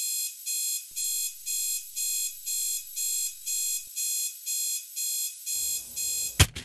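Digital alarm clock beeping, about two high-pitched beeps a second. Near the end comes a sharp click, and the beeping stops.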